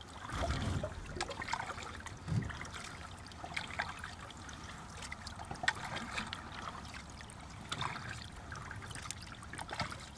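Water trickling and dripping with light irregular splashes around a kayak, as from paddle strokes moving it across the water, with a few soft low knocks.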